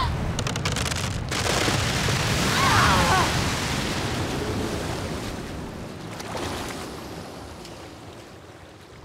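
Animated sound effect of ice cracking and a large ocean wave surging and crashing, with a short high cry about three seconds in. The rushing water then slowly dies away.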